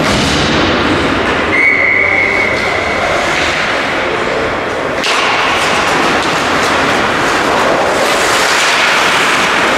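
Ice hockey rink game noise: a loud, steady rush of skating and play on the ice. About a second and a half in, a single whistle blast holds one high pitch for about a second and a half.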